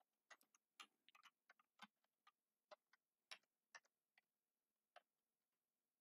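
Faint, irregular keystrokes on a computer keyboard: about a dozen separate clicks, some in quick runs and some spaced apart.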